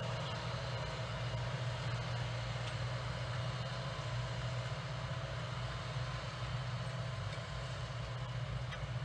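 New Holland T6 165 tractor's diesel engine pulling a plough under load, with a second tractor working behind: a steady, unbroken low engine drone.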